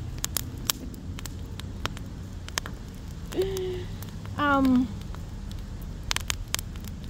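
Wood fire in a fire pit crackling, with scattered sharp pops. About halfway through come two short high-pitched cries, the second wavering and louder.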